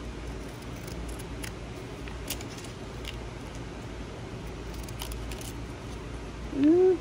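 Small scissors snipping paper, a few faint separate snips, over the steady whir of fans in a garage. Near the end comes a brief, louder rising tone.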